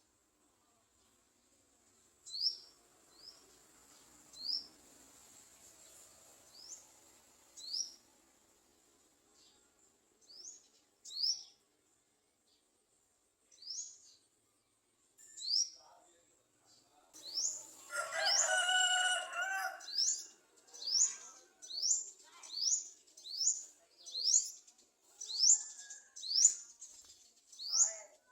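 Garden sunbird calling: short, sharp, rising chirps, a second or two apart at first, then faster and more insistent, about two a second, near the end. About two-thirds of the way through, a longer, lower call of about two seconds sounds over them.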